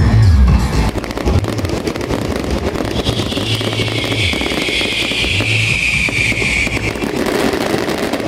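Dense, continuous crackling of firecrackers and fireworks going off. A hissing whistle joins about three seconds in and lasts about four seconds.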